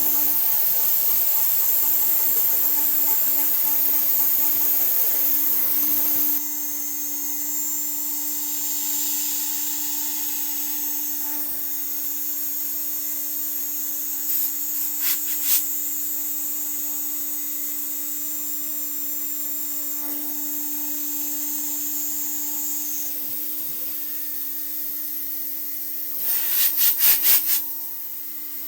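DIY CNC machine's spindle running with a steady whine while milling aluminium. The rougher low noise drops away about six seconds in. Short louder bursts of cutting clatter come around the middle and again near the end.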